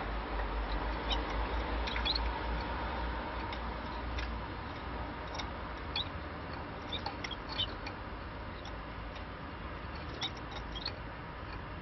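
Irish Fancy canaries giving scattered short, high chirps over a steady background hiss, with a low rumble that fades out about four seconds in.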